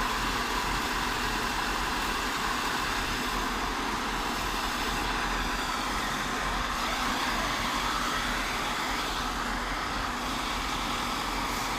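Kubota DC-105 combine harvester's diesel engine running steadily.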